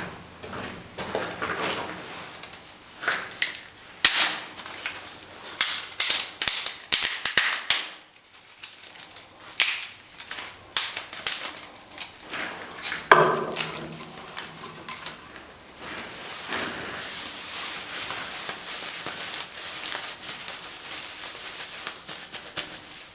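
A run of sharp cracks, clicks and knocks, then, after about fifteen seconds, a steady rustling hiss.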